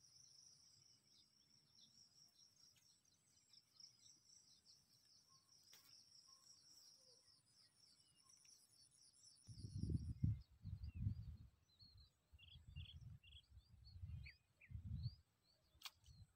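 Insects trilling steadily and faintly in the background, with short bird chirps. From about ten seconds in, a run of loud, irregular low rumbles.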